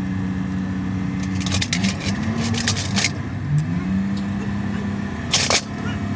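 An engine running steadily, its pitch rising briefly a few times, with light metallic clinks of bolts and tools at a truck's wheel hub: a cluster of clinks about one and a half to three seconds in and a sharper clink about five and a half seconds in.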